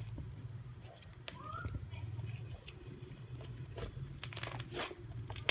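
Butter slime being squished and poked by hand, giving irregular small sticky clicks and crackles, thickest near the end, over a steady low hum.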